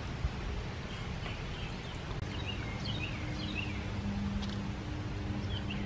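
Floating solar fountain pump, in direct sunlight, shooting a steady jet of water that splashes back onto the pond surface. Birds chirp briefly several times over it, and a faint low hum comes in about halfway through.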